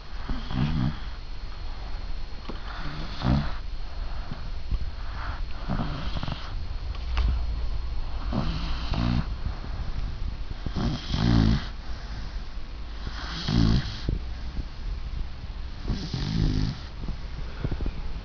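Labrador retriever puppy snoring in its sleep: a short, rattling snore about every two and a half seconds, seven in all.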